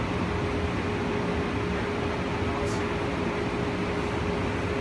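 Steady running noise inside a car of the cable-hauled BART Oakland Airport Connector people mover as it travels along its elevated guideway: an even rumble and hiss with a constant mid-pitched hum.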